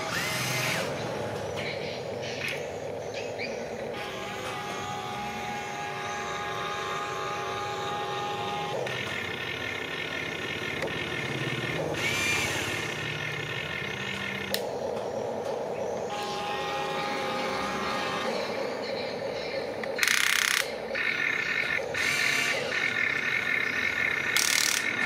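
Small electric motors and gearboxes of a remote-controlled excavator whining as it works. The pitch pattern switches every few seconds as different movements start and stop, with a few short clicks.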